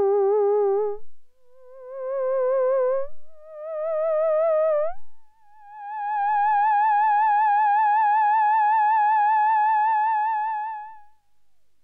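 LV3P theremin playing a slow line of sustained notes with steady vibrato, each sliding up into the next. The pitch rises step by step to a long held note of about six seconds that fades out near the end.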